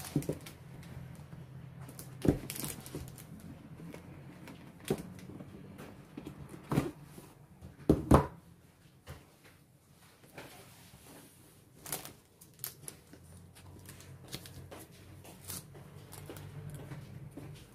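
Cardboard retail box for a tablet being handled on a table: scattered knocks, taps and rubs as the box is set down, its lid lifted off and the tablet slid out, the loudest double knock about eight seconds in. A steady low hum runs underneath.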